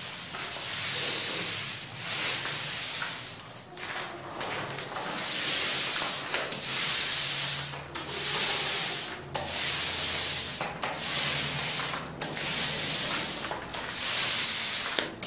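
A paint roller on an extension pole is rolled up and down a wall through wet paint, giving a rasping hiss with each stroke. There are about ten strokes, one every second and a half or so. These are the light laying-off passes over the freshly spread paint that even out its stipple texture.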